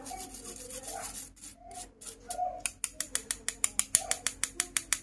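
A wooden spoon working cocoa powder through a metal mesh sieve: scraping at first, then from about halfway a quick, even run of scratchy clicks, about seven a second, as the spoon strokes the mesh.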